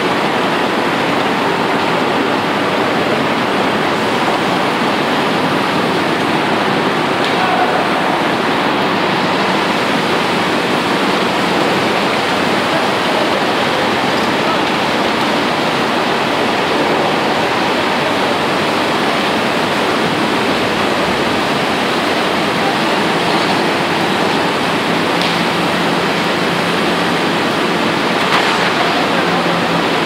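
Blast furnace tap hole blowing flame and sparks during a cast: a loud, steady rush of noise that does not let up.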